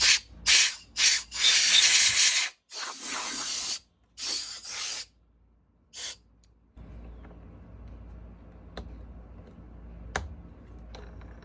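Blasts of compressed air blowing dust and hair out of a Roomba J7 robot vacuum's turning part. Three quick short puffs come first, then several longer bursts of about a second each, and the air stops about six seconds in. A low hum and a few light clicks of handling follow.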